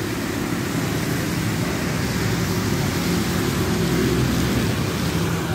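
Pouring rain on the roof, a steady rushing noise.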